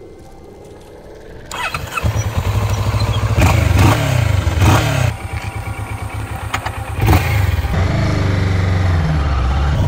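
Motorcycle engine, fitted with a homemade HHO hydrogen generator, starting about a second and a half in, then blipped on the throttle a few times and left running at a fast idle.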